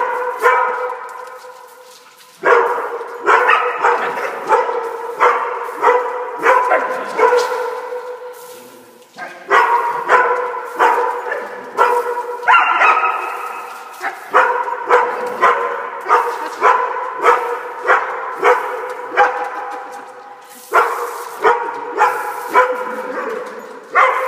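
Dog barking over and over in runs of quick barks with short pauses, echoing off concrete.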